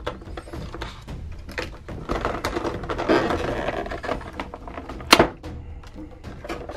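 Clear plastic packaging tray crackling and clicking as a hobby knife cuts the straps holding an action figure in place, with a denser crackle midway and one sharp snap about five seconds in.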